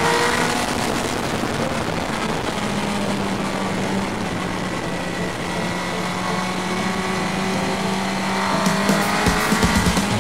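Sportbike engine heard from the rider's seat, over wind rush. The pitch climbs at the start as the bike accelerates, holds fairly steady through a leaning bend, then climbs again near the end on the straight.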